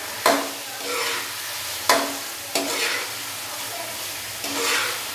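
A metal spatula stirs and scrapes chicken pieces in tomato masala around a metal karahi over a steady sizzle of frying. It knocks sharply against the pan three times and makes a few longer ringing scrapes: the chicken being bhuna (stir-fried) in the masala.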